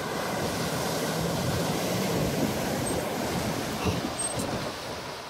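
Toyota 4Runner ploughing through a muddy puddle: a steady rush of splashing water and spray with the engine faintly under it, fading near the end as the truck passes.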